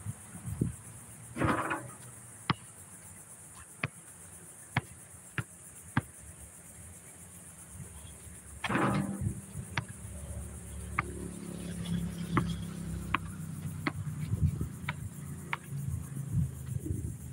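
A basketball bouncing on an outdoor court: sharp single thuds a second or more apart. Twice, about a second and a half in and again near the middle, a longer rattle comes from the hoop as shots arrive. A steady high insect buzz runs underneath, and a low rumble builds in the second half.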